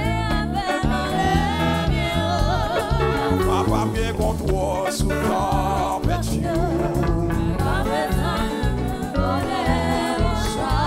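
Gospel worship music: voices singing with vibrato over instruments with a strong, pulsing bass line.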